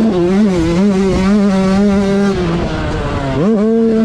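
Yamaha YZ125 two-stroke motocross engine from on board, held at high revs with a short blip early on. It eases off slightly past halfway, then revs sharply back up near the end.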